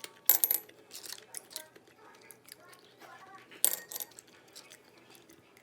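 A few sharp metallic clinks and clicks of small hard objects. They come in short clusters: one about a third of a second in, a few lighter ones after it, and another loud cluster about three and a half seconds in.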